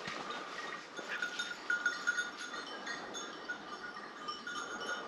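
Hunting dogs baying at a wild boar they are holding at bay, heard at a distance as short high yelps, with footsteps crunching through dry leaves.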